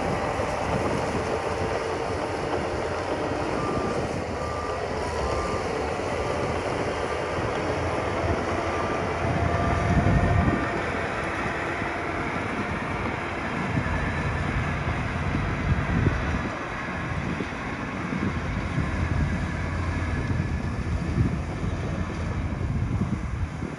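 Heavy earthmoving machinery running, the engines of dump trucks and a bulldozer, with the engine noise swelling under load a few times. From about four seconds in, a reversing alarm beeps for several seconds.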